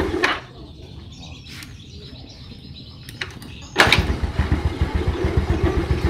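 Yamaha Mio Sporty scooter's single-cylinder four-stroke engine idling, cut off a moment in, then restarted with a sudden burst a little under four seconds in and idling again. It idles with a rough sound from the CVT, which the mechanic traces to the kick-starter pin rubbing on the pulley shaft.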